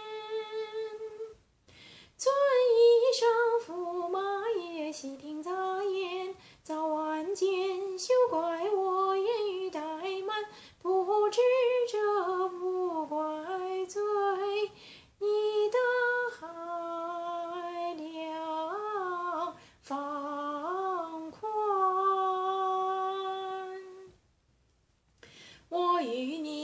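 A woman singing Beijing opera solo in a melismatic line, holding notes and sliding between pitches, with a brief break near the start and a pause of about a second and a half near the end.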